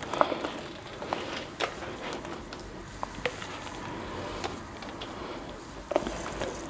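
A spatula scraping thick homemade mayonnaise off the side of a glass bowl into a steel bowl of diced vegetables, with a soft wet scraping and scattered light taps and clicks of spatula against the bowls.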